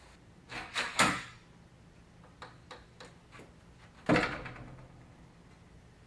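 A door banging: a few knocks about half a second to a second in, a handful of light clicks, then one loud bang with a short ringing tail about four seconds in.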